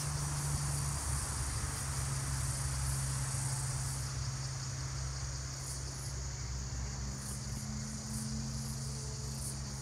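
Steady high chirring of an insect chorus, with a steady low hum underneath.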